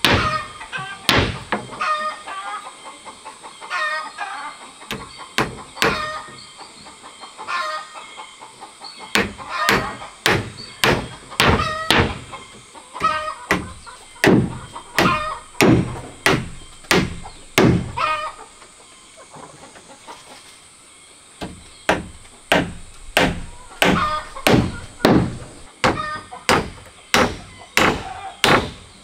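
Hammer blows driving nails into wooden boards, about two strikes a second, with a short pause about two thirds of the way through. Chickens cluck between the blows.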